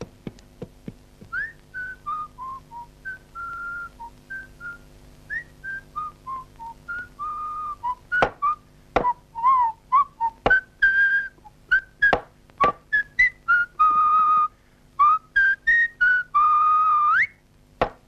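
A jaunty tune whistled in short notes, ending on a long note that slides upward. Hammer knocks on wood come between the notes, more often in the second half.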